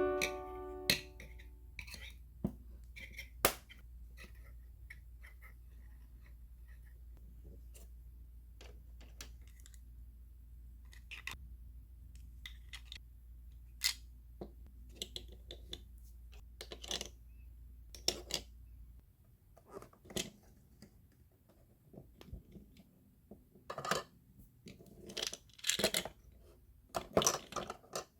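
Small plastic toy pieces clicking and tapping as they are handled, in scattered single clicks that bunch into quicker clusters near the end. A steady low hum runs underneath and stops about two-thirds of the way through.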